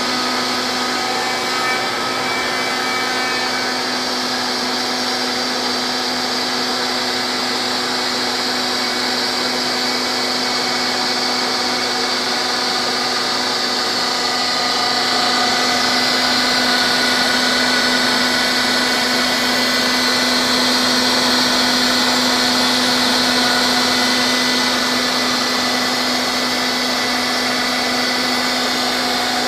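CNC router milling a 3/16-inch aluminium sheet: the spindle runs with a steady whine over the hiss of the cutter and the dust-collection vacuum. The noise grows somewhat louder about halfway through, then eases off.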